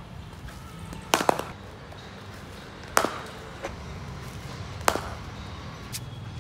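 A cricket bat striking a cricket ball in net practice: sharp cracks roughly every two seconds, the first a quick double knock, with a fainter knock near the end.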